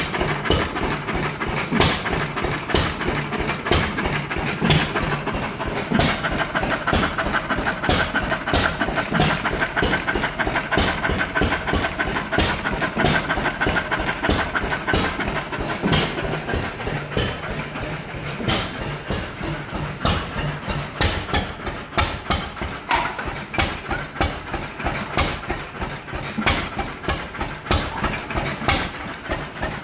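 A vintage Anderson single-cylinder stationary engine running with a steady, even firing beat, which becomes slower and more distinct over the last several seconds.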